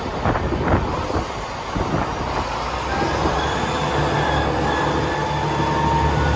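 A Transport for Wales diesel multiple unit standing at a platform with its underfloor engine running. The low engine hum steadies and grows louder about halfway through, after a few knocks and rattles in the first two seconds.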